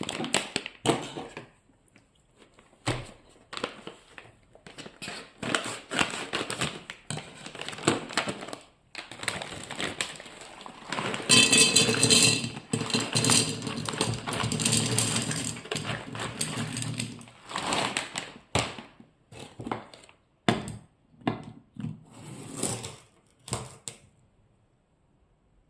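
Dry pasta rattling as it is poured and shaken into a pantry storage container, among knocks and clunks of the container and packet being handled. The longest, loudest run of rattling comes about halfway through.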